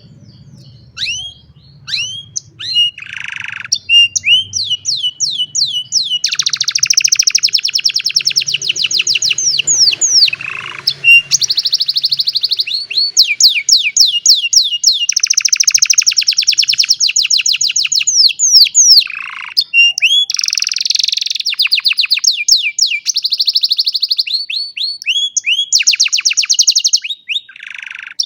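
Domestic canary singing a long song: sweeping whistled notes, starting about a second in, broken by several long runs of very fast rolling trills.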